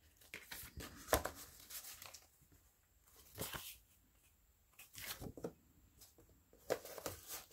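Paper and card handling in a handmade junk journal: a few brief rustles and scrapes as cards are slid and a page is turned, with quiet gaps between.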